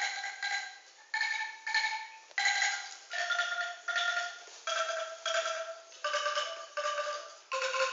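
Bamboo angklung shaken note by note: a slow descending melody of rattling pitched tones, most notes sounded twice in a row, each ringing about half a second.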